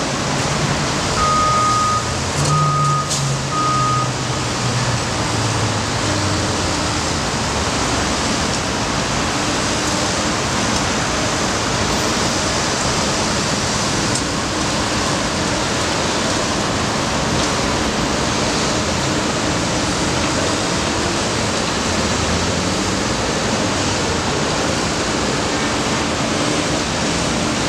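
A dump truck's backup alarm gives three short beeps about a second in, over the low hum of the truck's engine, which fades after a few seconds. Steady street traffic noise runs underneath.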